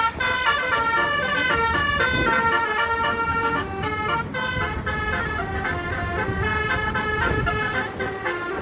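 Indonesian bus basuri (telolet) horn playing a quick melody, its several tones stepping from note to note, over a low rumble.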